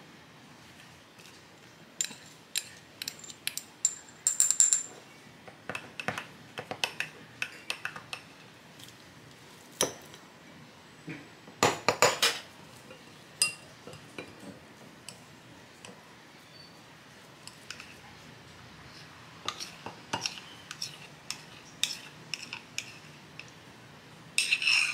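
Metal spoons clinking and scraping against glass bowls and a glass cup in irregular clusters of taps, loudest about 4 and 12 seconds in.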